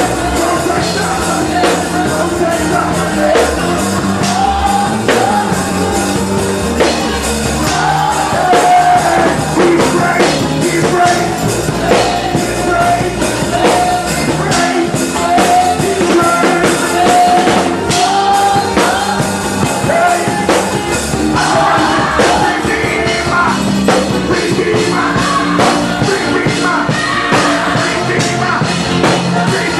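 Live worship band music with singing over drums and a steady beat.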